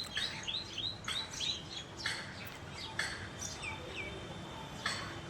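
Small birds chirping repeatedly in quick series of short notes, with a few brief scraping or rustling noises in between.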